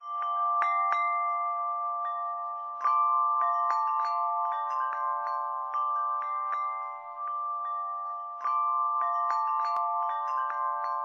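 Chimes ringing: many struck, bell-like metal notes overlapping and sustaining, starting suddenly, with fresh clusters of strikes about three seconds in and again past eight seconds.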